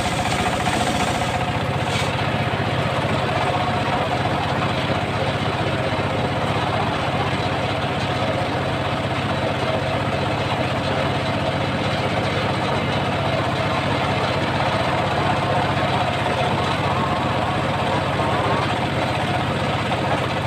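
Homemade engine-driven circular sawmill running steadily, its blade spinning as a mahogany log is fed along the table into it, with a steady whine over the engine noise.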